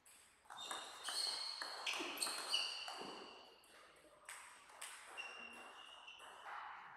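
A short table tennis rally: the ball clicks off the bats and the table several times in quick succession from about half a second to three seconds in, then a few scattered bounces follow as the point ends.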